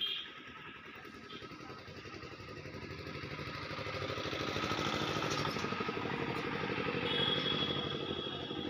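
A short click at the start, then a small engine running that grows louder over the first few seconds and then holds steady.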